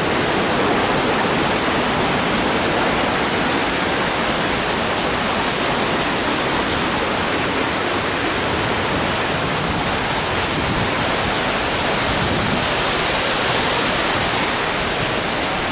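Waterfall rushing steadily, water cascading over rocks into a gorge: an even, unbroken noise of falling water.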